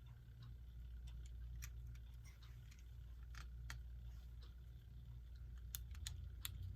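Scattered small clicks and taps of clock parts being handled and fitted during reassembly of a quartz clock movement, several sharp ones close together near the end, over a low steady hum.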